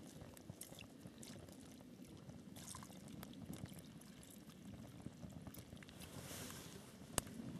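Water poured from a plastic bottle into a stainless steel pot of ramen noodles, the pour ending a few seconds in. A single sharp click near the end.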